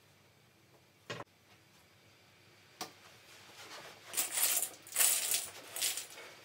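Small hard plastic C&C grid connectors clattering together on carpet as a handful is tipped out and spread, in several rattling bursts over the last two and a half seconds. A single sharp click comes about a second in.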